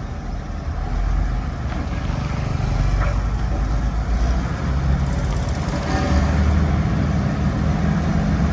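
Motor grader's diesel engine running, a steady low drone that grows louder about six seconds in.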